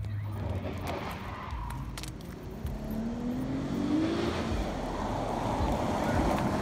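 A car driving past on the street, its engine rising in pitch as it speeds up about three seconds in, with road and tyre noise building as it draws close.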